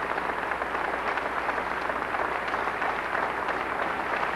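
Large audience applauding, a steady dense clatter of many hands clapping.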